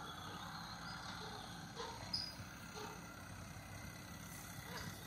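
Faint, steady hum of distant diesel earthmoving machinery running, with a few short chirps over it.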